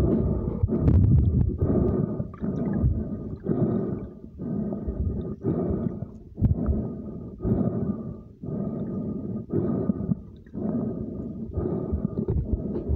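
Muffled underwater sloshing and rushing picked up by a smartphone held under the lake's surface, pulsing roughly once a second.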